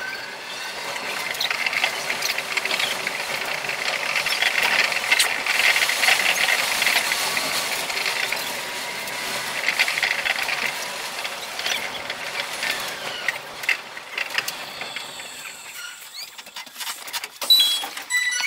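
Urban Flyer 0 series suspended monorail train running between stations, its running and motor noise played back five times fast, so it comes out as a high hiss. It gets quieter after about three quarters of the way through as the train slows into the next station, with a sharp click near the end.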